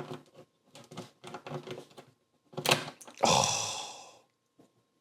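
Hard plastic LEGO pieces clicking and snapping as they are worked apart by hand: a run of small clicks, then one sharp, loud snap just under three seconds in. A sigh-like breath follows.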